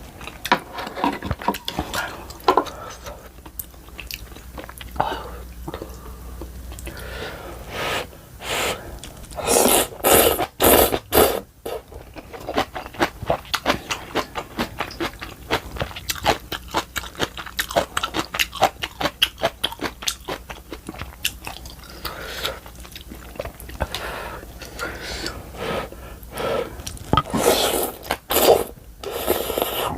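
A person eating ramen and kimchi close to the microphone: constant wet chewing and crunching in quick clicks. A few loud, rushing noisy bursts come around ten seconds in and again near the end.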